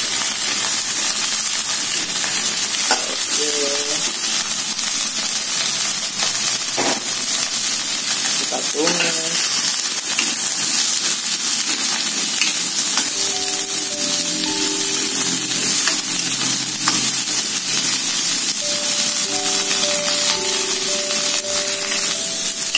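Baby corn and shallots sizzling in hot oil in a wok as they are stir-fried, with a metal spatula stirring and scraping through them.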